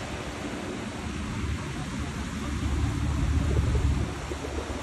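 Wind buffeting the microphone over surf washing on a beach: a low, steady rumble that swells louder a little past halfway.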